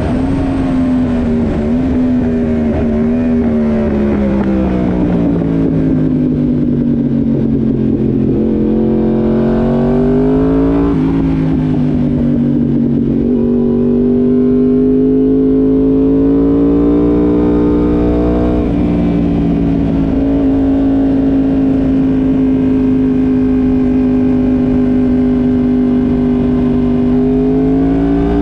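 Yamaha YZF-R1M's crossplane inline-four engine heard onboard at track speed. The engine note falls for several seconds as the bike slows, climbs sharply about ten seconds in, then holds a steady pitch through a long corner, with a brief dip near eighteen seconds.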